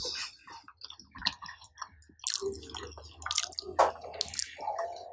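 Close-up eating sounds: chewing a mouthful of dal and rice, with the wet squish of the food and the wooden spoon clicking and scraping in a plastic tray, in irregular short bursts. The rice being chewed is undercooked.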